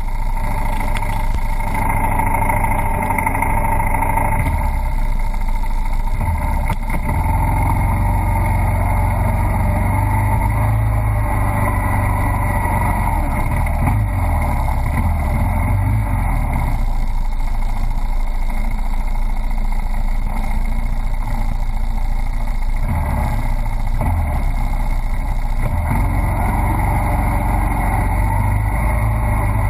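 1983 Honda ATC200E Big Red three-wheeler's single-cylinder four-stroke engine running steadily as it churns through deep flood water. The engine note rises and falls a little with the throttle, and water washes around the wheels.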